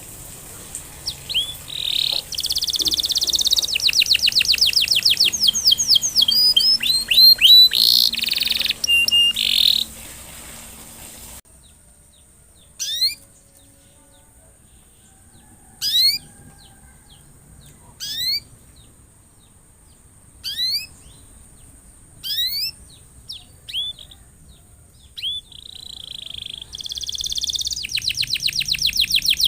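Domestic canary song: fast, ringing trills and rolls for about the first ten seconds. Then, after an abrupt drop in level, single short rising chirps come every two or three seconds, and the fast trilling returns near the end.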